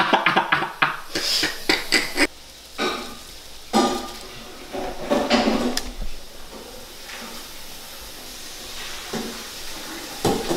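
Dishes and cutlery clattering at a kitchen sink as they are washed: a quick run of clinks and knocks in the first couple of seconds, a few louder clatters around the middle, then a steady hiss.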